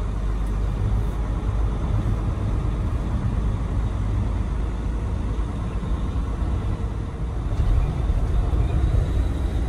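Steady low rumble of a Freightliner Cascadia semi truck driving at freeway speed, engine and tyre noise heard from inside the cab; a little louder near the end.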